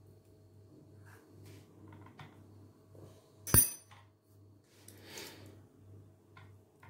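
Metal spoons working soft cream cheese: quiet scraping in a stainless steel bowl and against a silicone mould, with one sharp metal clink about halfway through.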